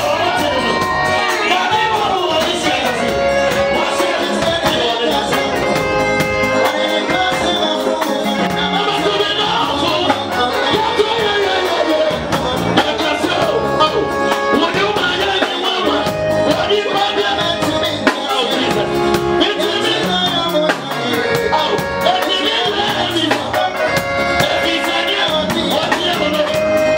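Live gospel worship band playing at a steady volume: electronic keyboards, electric bass and a drum kit whose cymbals keep an even beat.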